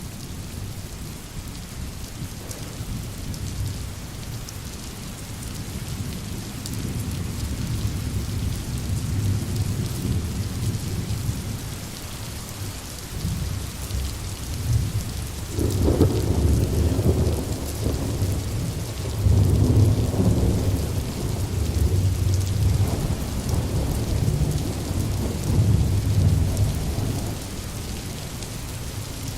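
Steady rain with rolling thunder. Low rumbles build through the first half, and several louder thunder peals come from about halfway through.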